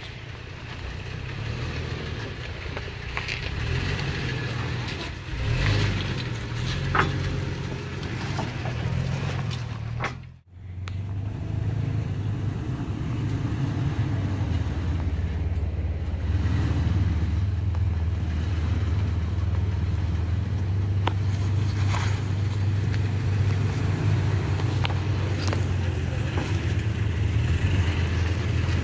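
Stock 2021 Toyota Tacoma TRD Off-Road crawling slowly over rock slabs: a steady low rumble of engine and tyres with a few sharp knocks on rock. The sound cuts out briefly about ten seconds in.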